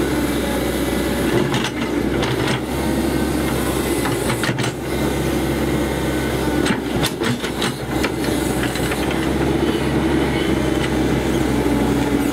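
Cat 312C excavator's diesel engine running steadily while the machine digs out a silted drainage trench, with knocks and clatters from the bucket and arm at a few points.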